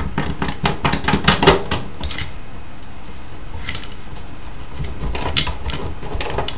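Sharp metallic clicks and rattles from a Soviet vacuum-tube avionics module (Blok 10) being worked loose from its metal mounting tray. They come in two clusters, in the first two seconds and near the end, with a quieter gap between.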